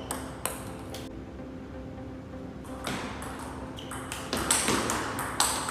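Table tennis ball knocked back and forth, clicking sharply off the paddles and table. A few clicks come in the first second, then a short lull, then a quicker run of strikes as a rally gets going from about three seconds in.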